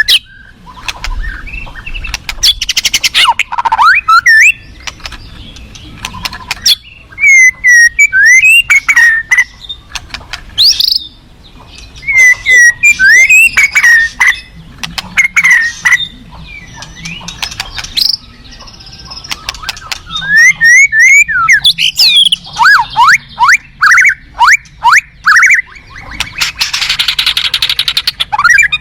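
White-rumped shama singing a loud, varied song. It mixes clear whistled notes sliding up and down with fast ticking trills and, near the end, a harsh rasping stretch.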